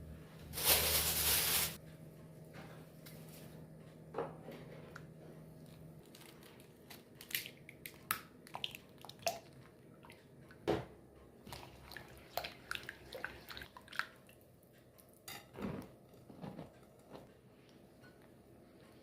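Kitchen work at a bowl while preparing bread dough: a short rushing noise about a second in, then scattered light clicks, taps and soft squishes of utensils and dough. A low steady hum stops about six seconds in.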